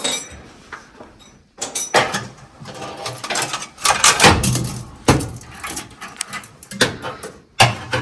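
Irregular metallic clinks, knocks and scraping of hand tools and parts while a brake line clamp and its bolt are being fitted. The sounds start about a second and a half in.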